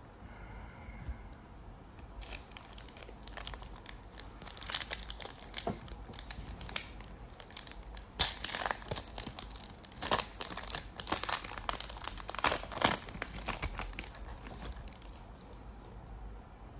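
Foil wrapper of a trading card pack being torn open and crinkled: a long run of crackling rustles starting about two seconds in, loudest in the middle and dying away near the end.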